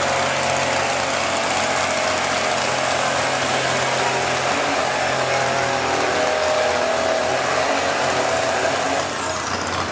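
Diesel Dodge Ram pickup pulling a sled at full throttle under heavy load, engine straining and putting out black smoke. The level eases slightly near the end.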